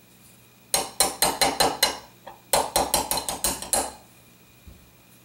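Small hammer tapping a pin punch, driving the extractor pin out the bottom of a Norinco 213 pistol slide. Two quick runs of light, sharp strikes, seven or eight each at about five or six a second, with a single tap between them.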